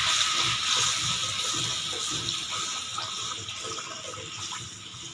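Water pouring in a thin stream into a kadhai of hot fried masala and tomato gravy, splashing into the liquid, growing quieter over the few seconds.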